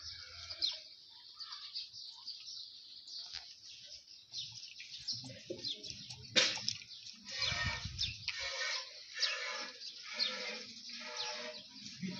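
A calf drinking water from a trough, the sucking and lapping of water at its muzzle, with small birds chirping continually. The drinking noises grow louder and more irregular in the second half.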